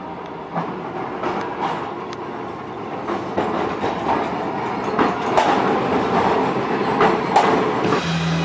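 Electric streetcars passing close by, their steel wheels rumbling along the rails and clicking over the track joints, often in quick pairs.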